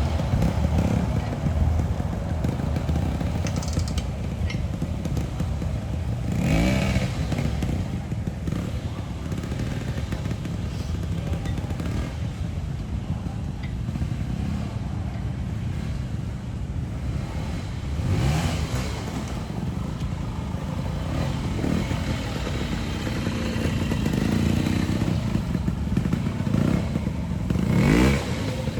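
Motorcycle engines running without a break. Three times, at about a quarter of the way, about two thirds, and near the end, an engine's pitch sweeps up and back down as a bike revs or rides past.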